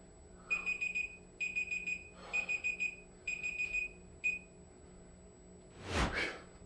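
Interval timer beeping: four quick bursts of several high beeps each, about a second apart, then one last single beep. Together they mark the end of a timed exercise set. A short whoosh follows near the end.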